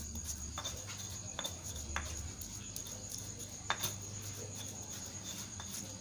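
Crickets chirring steadily at a high pitch, with a few scattered sharp knocks or clacks, about one a second, the loudest nearly four seconds in.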